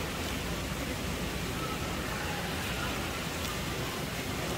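Steady background hiss with faint distant voices.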